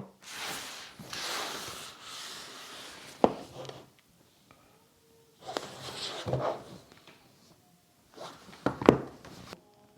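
Hands handling a product's cardboard retail box: rustling and sliding, with two sharp clicks or knocks, the louder one near the end.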